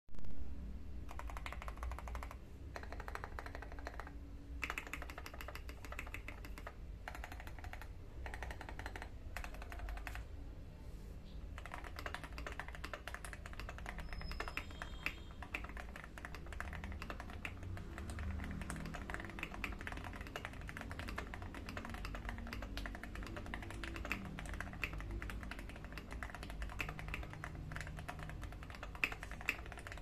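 Typing on a KBD67 Lite mechanical keyboard in a smoke polycarbonate case with Durock L7 linear switches: a fast, steady run of key clacks, broken by a few short pauses in the first ten seconds or so.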